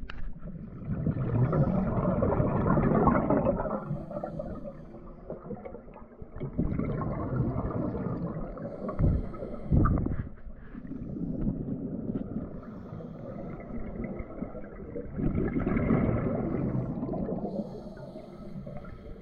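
Scuba regulator breathing heard underwater through a camera housing: three long exhalations of bubbles, each lasting a few seconds, with quieter stretches between them and a couple of brief knocks.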